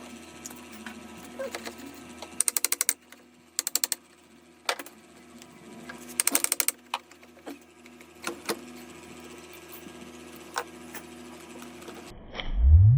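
Mechanical clicking during repair work on a hydraulic crimping tool: scattered single clicks over a steady hum, with three short bursts of rapid clicking, about a dozen a second. Near the end the sound cuts off and a loud rising low whoosh follows.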